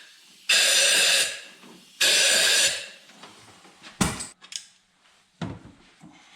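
Two short bursts of hissing spray, each just under a second, followed by three sharp knocks of tools on the engine.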